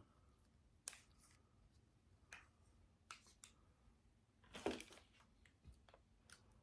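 Near silence broken by a few faint clicks and taps and a brief rustle about four and a half seconds in: condiment containers and utensils being handled while sour cream and hot sauce go onto an omelette.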